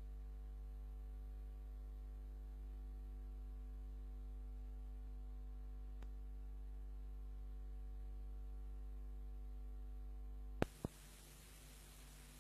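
Steady low electrical mains hum with faint hiss, the background of the recording after the closing music. About ten and a half seconds in, two sharp clicks come close together and the hum drops away, leaving only faint hiss.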